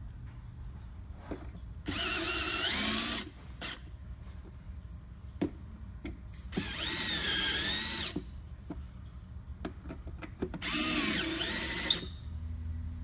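Power drill driving screws into a layered speaker box's clear acrylic rings, in three runs of one to two seconds each, the motor's whine rising and falling in pitch as it speeds up and slows. Short clicks come between the runs.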